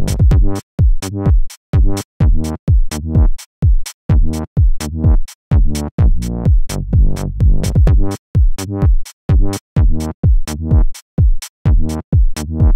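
Electronic dance music with a fast, steady drum-machine beat and deep bass.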